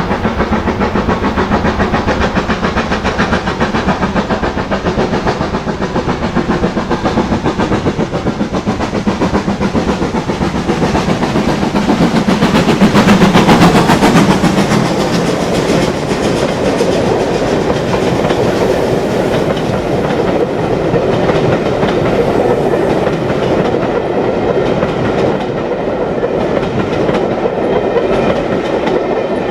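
Steam-hauled train passing, loudest about halfway through as the locomotive goes by, followed by the coaches rolling past with the clickety-clack of wheels over rail joints.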